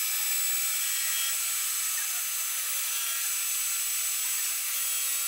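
End mill on a jig-boring machine cutting away excess weld from a main-bearing saddle of a Hyundai Sonata 2.4 cylinder block: a steady, even milling noise that trues the bearing-cap seating surface.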